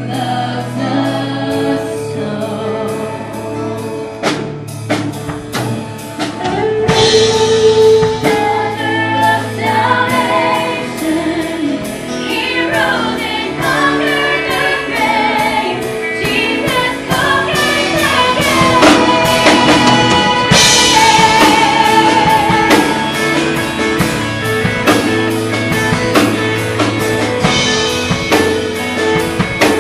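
Live band playing, with guitar and a drum kit keeping a steady beat and voices singing over it; the music grows louder about seven seconds in.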